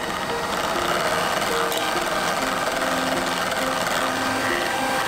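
Hamilton Beach electric hand mixer running steadily, its beaters whisking egg yolk and salt in a stainless steel bowl while oil is drizzled in to emulsify the sauce.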